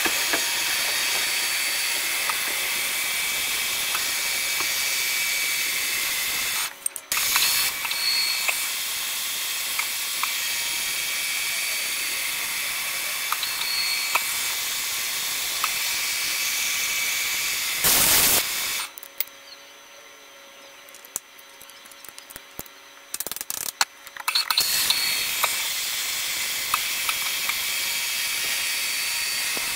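A milling machine's face mill cutting a metal block, giving a steady high-pitched cutting hiss with faint ringing tones. It drops out for a moment about a quarter of the way in. Near the middle there is a short loud burst, then the sound goes much quieter for about five seconds before the cutting resumes.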